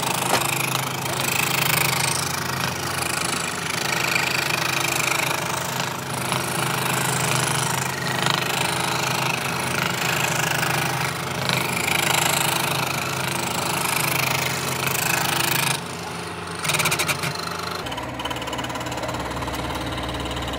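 A power tool running steadily while working wood, with a dense buzzing noise. Near the end it changes to a different, lower steady hum.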